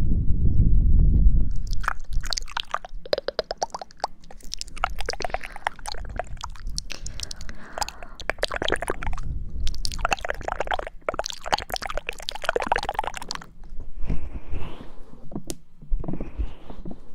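Close-miked ear-cleaning sounds: dense wet crackling and scraping right against the microphone. A deep rumble of handling or blowing comes in the first two seconds, and the crackles thin out after about fourteen seconds.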